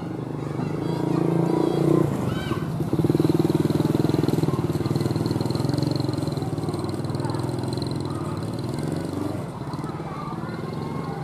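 CC 201 diesel-electric locomotive's engine working under load as it hauls a passenger train away from a station. The engine swells over the first few seconds, then eases off slowly as the train moves away.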